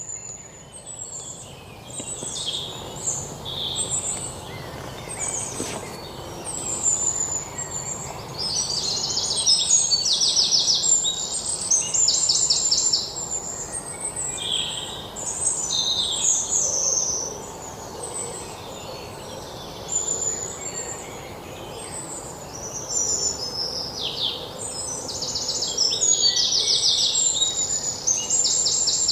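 Several wild birds calling and chirping high-pitched throughout, with repeated rapid trills that come loudest in two spells, over a faint low background hiss.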